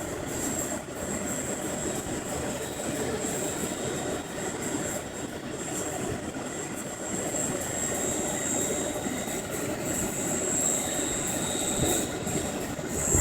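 GAUI 550 Hurricane radio-controlled helicopter running in flight: a steady rotor whoosh with a thin, high-pitched motor whine on top.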